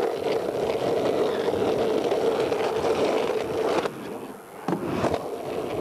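Skateboard wheels rolling steadily over concrete, a rough rumble. The rolling drops away about four seconds in, two short knocks follow, and then the rolling starts again.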